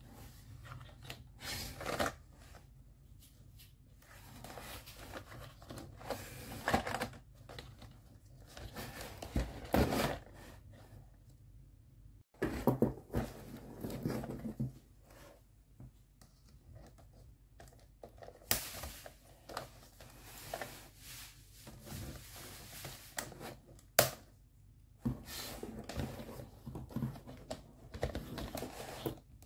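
Hard plastic of a toy kitchen-set case being handled: irregular scraping, rubbing and clicking as the case and its stove-top lid are turned over, with one sharp click about three-quarters of the way through.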